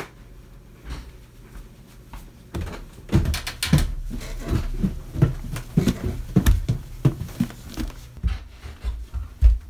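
Footsteps of two people in socks going down a flight of stairs: a run of dull thumps, several a second, starting a couple of seconds in.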